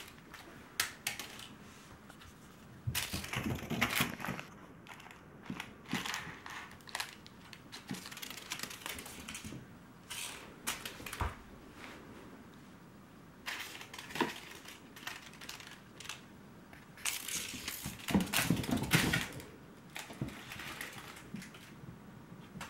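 Crinkle toy crackling and rustling in irregular bursts as kittens bat and chase it, with the longest, loudest bursts a few seconds in and again near the end.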